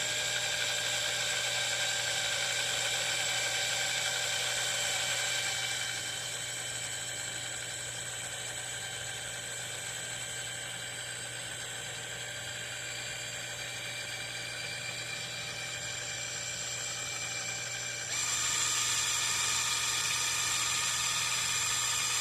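Small electric drill running steadily with a high whine while slowly drilling an air hole through an RC beadlock wheel; the motor slows a little about six seconds in and speeds back up near the end.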